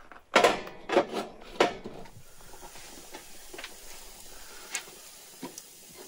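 A heavy lidded cauldron set down into the hole of a steel stovetop: a few loud metal clanks in the first two seconds. After that, faint scattered ticks and crackles from the wood fire below.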